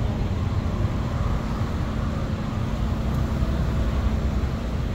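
Steady low rumble of a moving open-top double-decker tour bus and the road traffic around it, heard from the open upper deck, with a faint steady engine hum.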